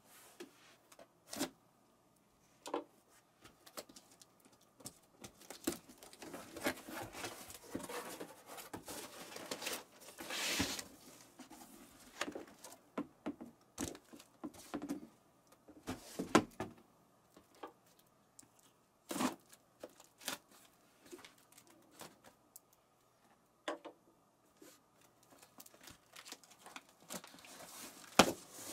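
A box and its packaging being handled and opened. Scattered knocks and clicks alternate with stretches of rustling and tearing, the longest lasting several seconds in the middle.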